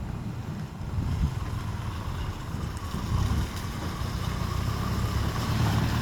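A motor vehicle's engine running while it moves along the road, a steady low drone with road noise that grows a little louder near the end.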